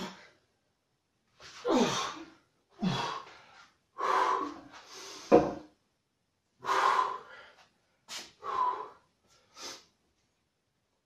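A man breathing hard and gasping after a set of high-repetition dumbbell biceps curls: about nine loud exhales a second or so apart, the first few voiced and falling in pitch. A short thud comes about five seconds in.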